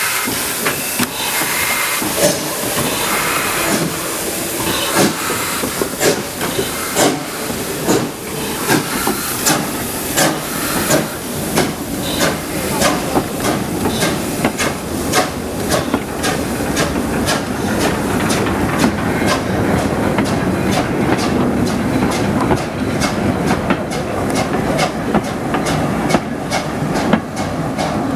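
Steam locomotive hauling a goods train: steam hissing, and from about ten seconds in the wagon wheels click over the rail joints in a steady rhythm about twice a second as the wagons roll past.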